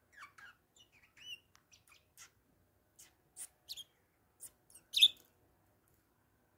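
Bourke's parakeet giving a few soft twittering chirps, then a run of short sharp clicks and ticks, the loudest about five seconds in, as it picks at the wicker basket rim with its beak.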